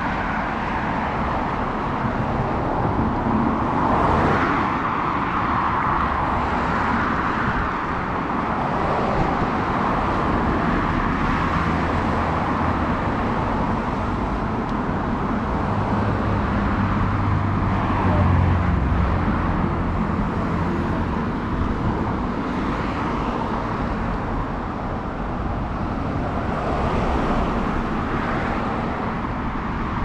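Road traffic on a busy city street: cars passing one after another in a steady wash of tyre and engine noise, with a deeper engine rumble swelling a little past halfway.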